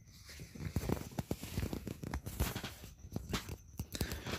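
Irregular light scuffs and knocks, close to the microphone, from someone moving about while filming: footsteps and handling noise.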